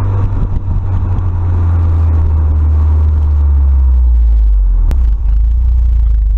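Stock exhaust of a 2018 Subaru WRX, its turbocharged flat-four heard at the tailpipe while the car drives: a steady low rumble whose pitch drops slightly about five seconds in.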